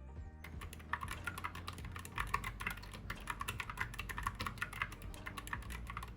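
Typing on a Gamakay MK61 keyboard with Gateron Yellow optical switches: a quick, uneven run of key clicks starting about half a second in. The switches click on release, which the owner puts down to low-quality, wobbly switches.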